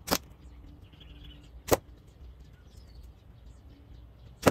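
Three sharp cracks of slingshot shots, the second about a second and a half after the first and the third nearly three seconds later. Faint bird chirps can be heard between them.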